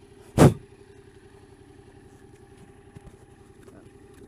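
Yamaha MT-07's parallel-twin engine running steadily at low revs, with one short, loud bump about half a second in.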